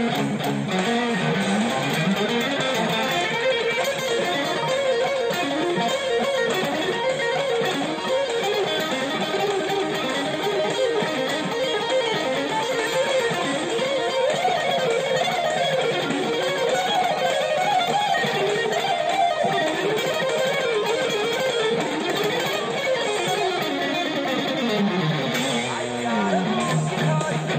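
Fender Japan Stratocaster electric guitar, built at the Fuji-gen plant in 1985–86, played as a lead line of quick single-note runs that climb and fall in pitch.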